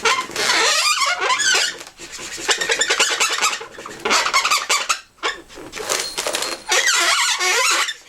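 Marker tip squeaking against inflated latex balloons as the eyes are coloured in, in several bursts of wavering squeaks with short breaks between strokes.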